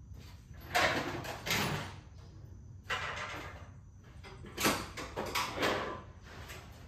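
A big screwdriver scraping and prying against metal in three rough bursts of about a second each, working at a stuck part of a lawn tractor mower deck.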